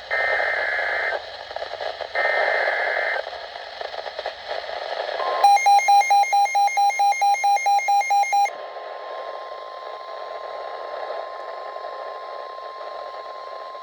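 Weather radio alert tones over radio static: three harsh buzzing data bursts, each about a second long, open the alert. An electronic alarm then beeps rapidly, about four beeps a second, for around three seconds. After that the steady, single-pitched warning alarm tone holds on under the hiss for about five seconds.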